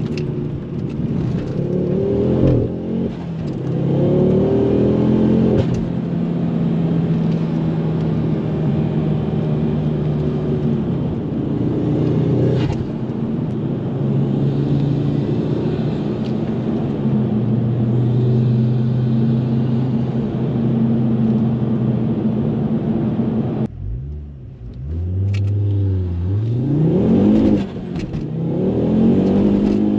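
Ford Focus RS Mk2's 2.5-litre turbocharged five-cylinder engine under way. It pulls through a couple of gear changes, then holds steady revs for a long stretch. About three-quarters through, the throttle is lifted and the revs drop, then the engine pulls hard again with rising revs and another shift.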